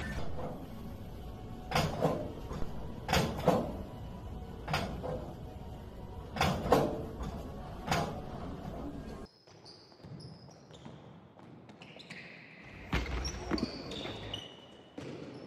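Gym equipment knocking heavily in a large echoing gym hall: about seven thumps over nine seconds, some in quick pairs. Then the sound cuts to a quieter stretch with a single thump.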